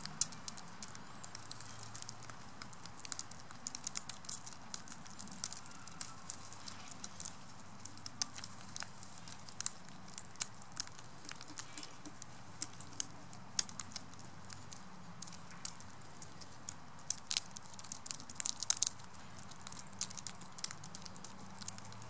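Northwestern crows pecking sunflower seeds off a gravel path: irregular sharp taps and clicks of beaks on seeds and stones, coming thickest near the end.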